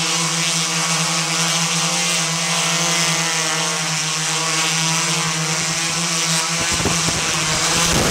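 A camera drone's electric motors and propellers hum steadily at one pitch. About six and a half seconds in, the steady hum breaks up into a rougher, noisier rush as the drone comes down close to the ground.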